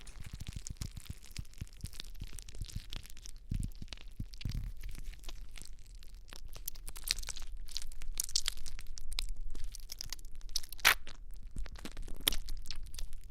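Slime being worked, a dense run of sticky clicks and crackles that grows busier and louder in the second half.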